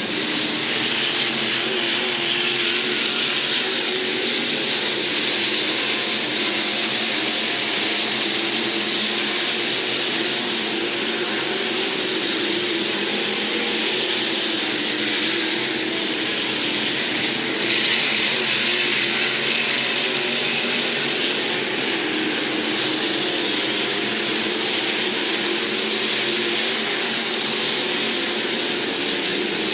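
IMCA SportMod race cars' V8 engines running steadily around a dirt oval, a blended pack of engines with no single car standing out.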